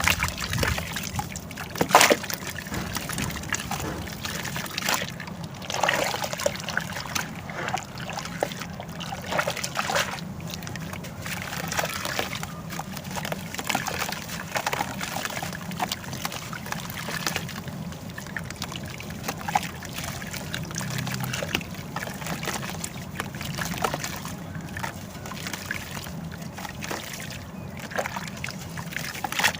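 Dried sand-and-cement pieces dipped in water and crumbling. The water sloshes and trickles under irregular small crackles, with one sharper snap about two seconds in.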